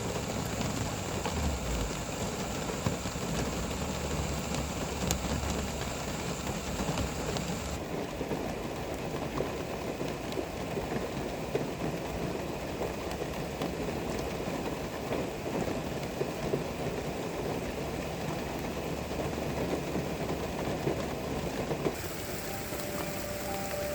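Heavy rain falling steadily, a dense even patter. Near the end, faint musical tones begin.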